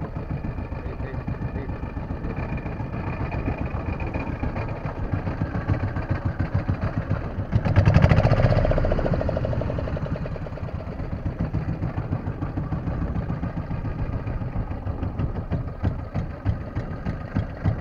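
Fishing boat's engine idling with a rapid, steady chugging, and a louder rush of noise about eight seconds in that dies away over a couple of seconds.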